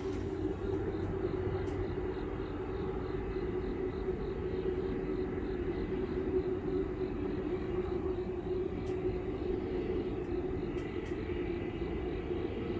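Steady low droning hum with a faint high steady tone above it. The recorder takes it for a strange noise coming from the sky, not from traffic.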